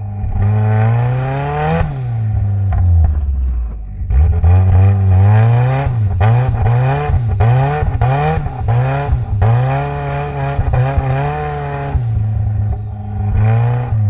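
Mitsubishi Lancer Evolution X's turbocharged 2.0-litre four-cylinder, tuned to about 500 hp, heard from inside the car. It revs up and down repeatedly in first gear as the throttle is worked on and off, the pitch swinging every half second or so. Short sharp cracks come through in the middle.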